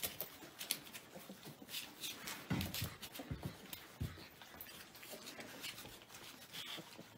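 Caucasian Ovcharka puppies eating dry kibble together: scattered small crunches and clicks of chewing, with a few dull thumps a little before the middle.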